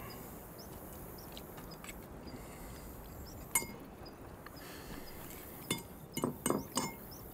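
Forks clinking against plates and a pan while two people eat: a few scattered short metallic clinks, with a quick run of them near the end.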